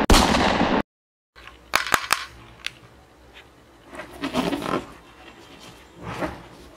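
A loud rush of noise that cuts off abruptly under a second in, followed by a quick cluster of sharp plastic clicks from a toy revolver being handled and triggered, then softer handling sounds.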